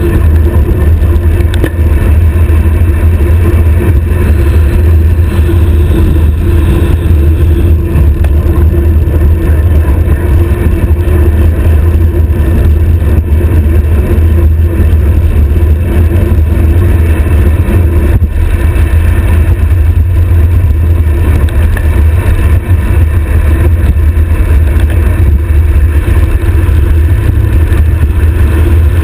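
Loud, steady wind noise buffeting the microphone of an action camera mounted on a bicycle's stem during a high-speed road-bike descent, a deep continuous rumble with no let-up.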